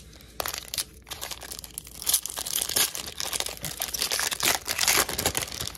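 A crinkly foil wrapper of a baseball card pack rustling and crackling as it is handled and torn open by hand.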